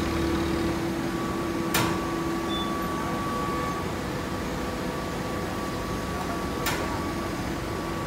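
Baling-plant machinery running with a steady hum and constant tones. Two sharp knocks cut through, one about two seconds in and another near the end.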